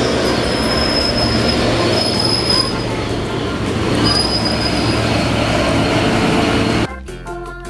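A train running on rails, a steady rumbling rush with high-pitched wheel squeals twice. It cuts off abruptly about seven seconds in.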